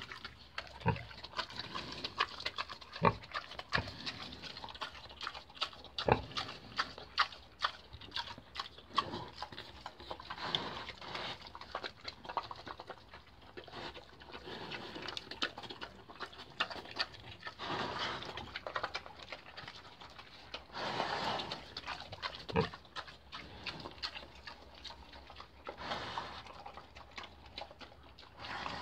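A pig eating wet slop from a feed pan, chewing and smacking. The first half is a quick run of sharp bites. Later come slower munching and longer wet, noisy stretches.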